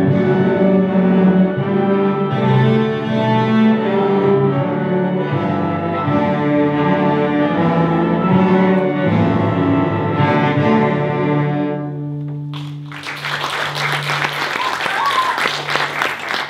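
A primary-school string orchestra of violins, cellos and double basses plays a piece in several parts, holding long bowed notes. About twelve seconds in, the music ends on a sustained low note and applause breaks out.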